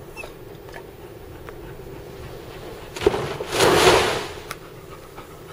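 A breaking wave hitting the car, heard from inside the cabin: a sharp thud about three seconds in, then a heavy rush of seawater and spray washing over the windshield for about a second before fading.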